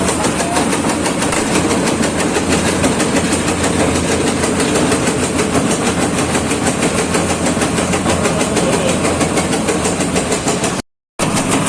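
Tobacco shredding machine running steadily, its cutter giving a rapid, even chopping rhythm over the drone of its drive; the sound cuts out for a moment near the end.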